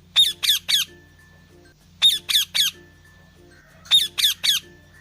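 Parrot squawking in quick triplets, three calls at a time, with the triplets repeating about every two seconds.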